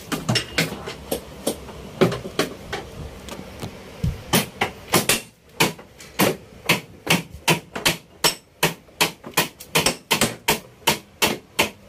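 Repeated hammer blows on the metal structure of an Airbus A320 cargo hold as a corroded stringer is knocked loose for removal. The strikes are sharp and irregular at first, then come faster from about four seconds in, roughly two to three a second.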